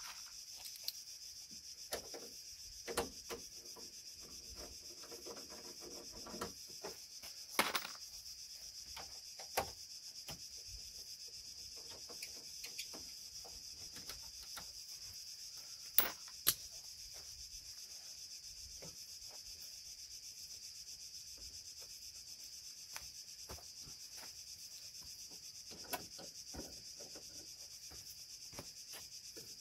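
Scattered clicks and knocks of hand tools and loose car parts being handled at a car's front end, the sharpest a pair close together about halfway through, over a steady high-pitched hiss.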